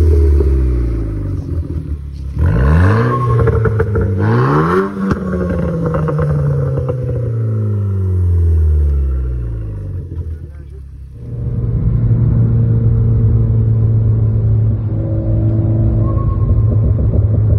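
Renault Clio 4 RS Trophy's turbocharged 1.6 four-cylinder with an aftermarket exhaust, revved sharply twice and left to fall back slowly. About eleven seconds in it gives way to a steady engine drone heard from inside the cabin while cruising.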